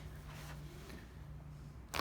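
A single sharp crack near the end: the neck joints popping during a chiropractic neck adjustment. A low steady hum lies underneath.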